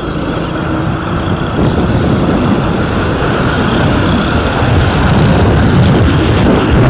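Bus engine rumble and road noise close by, growing louder over the first couple of seconds and then staying loud and steady.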